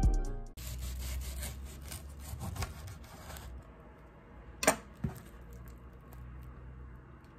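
A kitchen knife sawing through the crisp toasted bread of a grilled cheese sandwich on a plastic cutting board, a raspy back-and-forth scraping for about three seconds. A single sharp knock follows near the middle, then only faint handling sounds as the sandwich is pulled apart.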